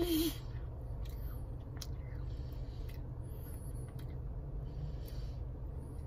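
A child's wet mouth sounds, faint smacks and slurps, as she eats a melting popsicle, over the steady low hum of a car cabin. A brief murmur of voice comes at the very start.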